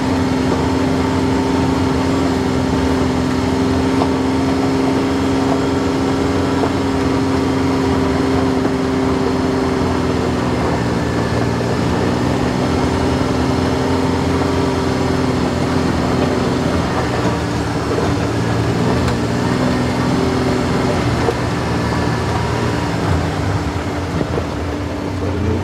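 A Kawasaki Mule Pro-FXT side-by-side on the move, heard from inside the cab. Its 812 cc three-cylinder engine and drivetrain make a steady drone over the rumble of the ride on a dirt trail. The engine note drops a little about two-thirds of the way through.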